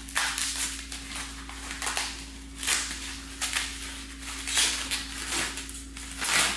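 Packing material rustling and crinkling in irregular bursts as exhaust parts are pulled out of their box, over a steady low electrical hum.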